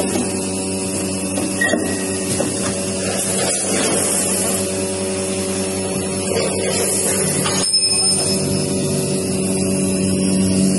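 Vertical form-fill-seal rice vacuum packing machine running: a steady electric hum, broken by a few short clicks and knocks of its mechanism.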